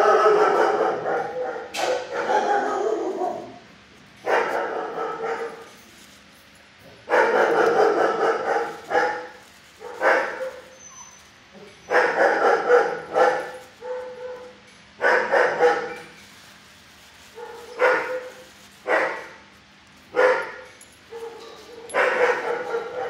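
Dogs in shelter kennels barking in repeated bouts, about a dozen bursts a second or two long with short gaps between.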